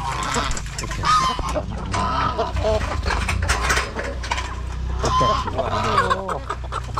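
A goose honking and chickens clucking in repeated short calls, a flock of poultry crowding the pen waiting to be fed, with scattered clicks and knocks among them.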